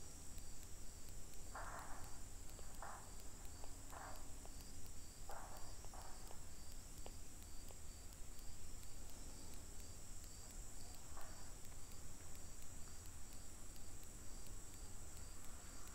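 Faint background with a steady high-pitched whine, and a few soft, brief scuffing noises about two, three, four and five seconds in and again near eleven seconds.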